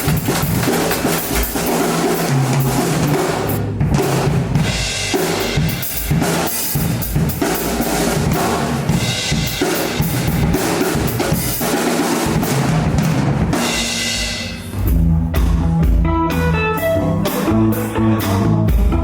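Rock band playing live at a soundcheck, with the drum kit loudest: snare, bass drum, fills and cymbals. About fifteen seconds in the playing drops briefly, then restarts as a steady beat with a bass line under it.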